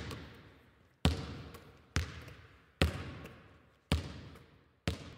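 A basketball bounced slowly, five bounces about a second apart. Each bounce is a sharp hit followed by a long fading echo.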